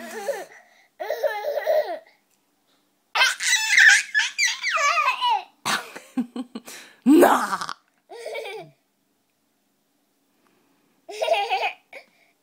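A toddler laughing in several separate bursts, high-pitched giggles broken by short pauses, with a longer pause about two-thirds of the way in.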